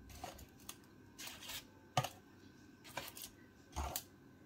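Light handling noise: a few short rustles and a sharp click about two seconds in, with a dull knock near the end.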